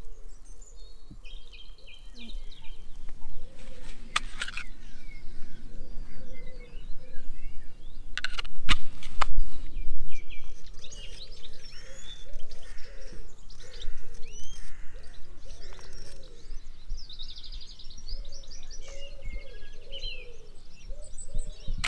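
Outdoor ambience of small birds chirping and trilling, with short twittering runs near the start and again near the end, over a steady low rumble. A few loud brief knocks or buffets come about 4 seconds in and twice around 8 to 9 seconds in, the loudest moments.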